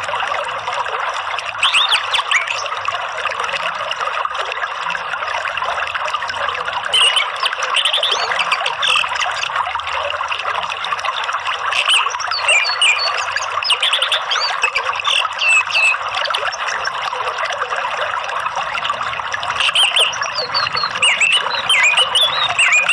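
Running water trickling steadily, with a bird chirping in short, quick phrases that come in clusters every few seconds.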